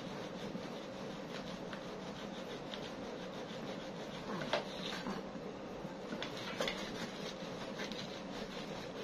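Kitchen sponge rubbing over a Tornado fan's plastic blade in a steady scrubbing, with a couple of light clicks about halfway through.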